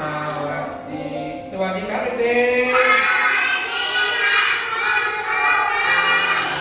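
A group of voices singing a song together in unison, with long held notes; the singing grows louder and fuller about two seconds in.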